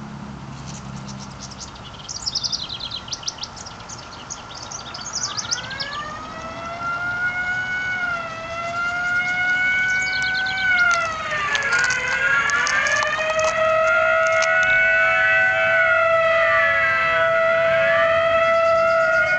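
Birds chirp for the first few seconds. About five seconds in, a siren starts wailing. More sirens join it, several rising-and-falling wails overlapping and growing louder toward the end, with a few clicks around the middle.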